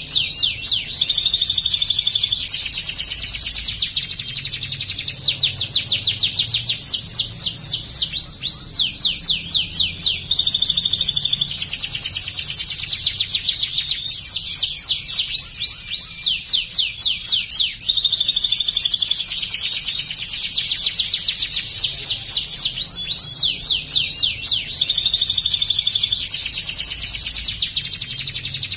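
White domestic canary singing nonstop: fast series of sweeping notes alternate with long rolling trills. The song carries mimicked bar-winged prinia (ciblek) phrases.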